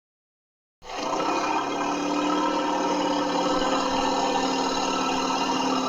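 Asian elephant making one long, steady low call that begins about a second in and holds at an even pitch.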